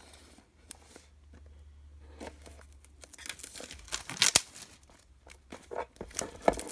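Thin plastic shrink-wrap being torn and pulled off a phone box, crinkling and crackling. It is faint for the first few seconds and gets louder about three seconds in, with the sharpest crackles a little after four seconds.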